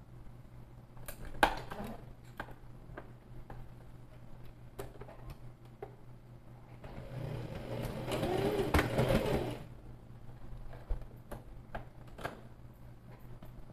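Domestic sewing machine stitching in one short burst of about two and a half seconds, midway through. Scattered sharp clicks and knocks come before and after it, the loudest about a second and a half in.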